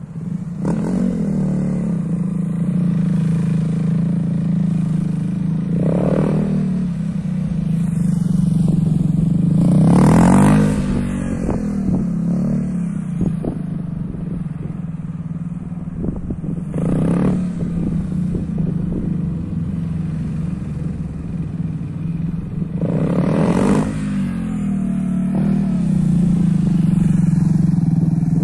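KTM Duke 390's single-cylinder engine held at low revs, with short bursts of throttle several times as the bike pulls out of tight turns.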